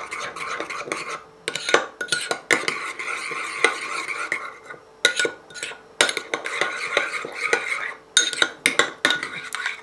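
A spoon stirring a spiced dip in a bowl, scraping and clinking against the bowl in repeated strokes, with a few short pauses.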